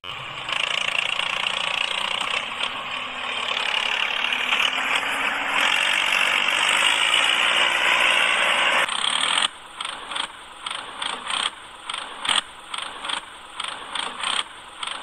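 Small electric gear motor of a homemade toy tractor whirring steadily as it drives. About nine seconds in the whirr stops and gives way to a run of short clicking knocks, about two a second.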